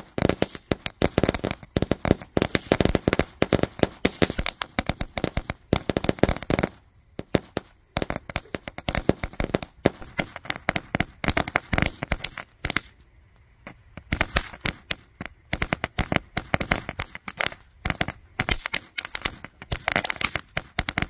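Ground firework crackling: a dense run of rapid sharp pops as it sprays sparks, easing off briefly twice before picking up again.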